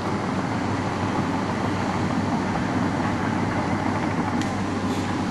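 Crawler bulldozer's diesel engine running steadily in the distance, under the crackle of gusty wind buffeting the microphone.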